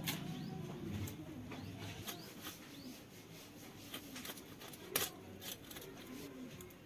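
Knife working on raw fish pieces over a concrete floor: scattered short clicks and scrapes, the sharpest about five seconds in. Faint bird calls behind.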